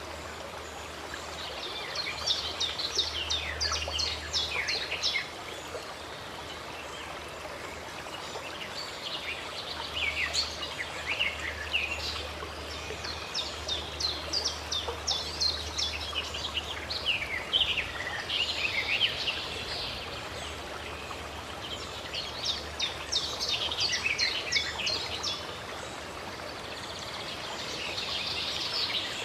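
Birds singing over a steady rush of running water, in about four bouts of quick, repeated high notes with short pauses between them.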